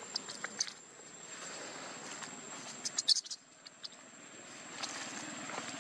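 Outdoor ambience with a steady high-pitched insect drone, like a cricket or cicada, and a quick cluster of sharp high clicks about three seconds in.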